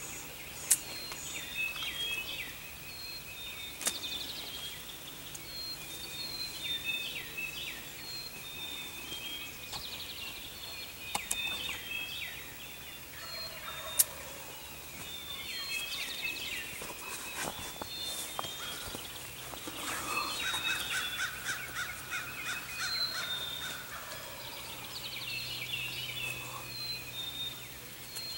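Wild turkey gobbler gobbling several times over a dawn chorus of songbirds. Two brief sharp ticks stand out, about a second in and near the middle.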